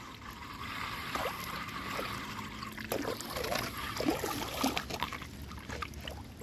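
Floodwater swirling down a curbside storm drain that has just been unclogged, a steady trickling gurgle with short irregular splashes from about three seconds in.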